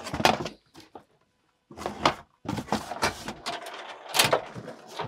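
Rummaging through a tool case in the back of a van for a screwdriver: a lid is lifted and tools and case parts clatter and rustle in several short bursts, with a brief pause about a second in.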